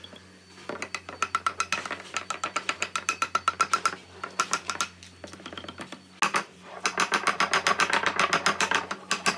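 Claw hammer tapping nails into pine boards: two runs of quick, light strikes, about five or six a second, with a pause of about two seconds between them.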